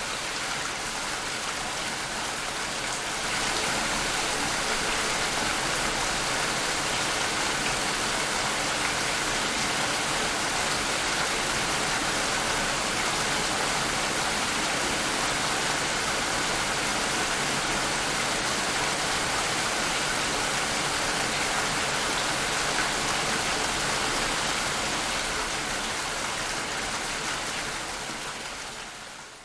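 Steady rain falling, an even, dense hiss of drops. It gets a little louder about three seconds in and fades out at the end.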